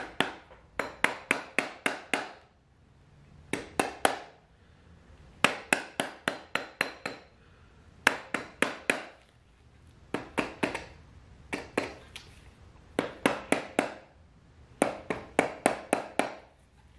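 Rapid sharp taps on the aluminium silencer of a YZ85's FMF Shorty exhaust, about six a second in short runs of three to nine, with brief pauses between the runs.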